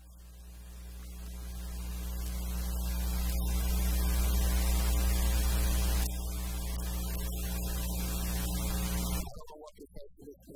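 Electrical mains hum with a buzzy stack of overtones in the audio feed, swelling up over the first few seconds, dropping a step about six seconds in, then cutting off suddenly near the end. It drowns out the preaching.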